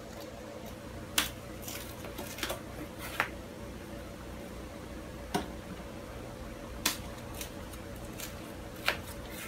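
Wooden chair legs and a black metal wire leg frame knocking and clacking as they are handled and fitted together, about seven sharp knocks at uneven intervals over a steady low hum.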